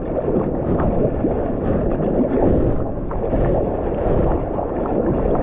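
Seawater rushing and splashing around a surfboard as it moves through the sea, a dense, muffled, low rush with wind buffeting the microphone.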